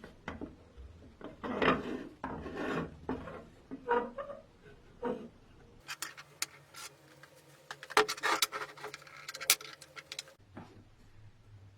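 Rasping, scraping strokes on wood from hand work on a vintage coffee grinder, in two uneven runs. The second run, from about six seconds in, has sharper clicks among the scrapes.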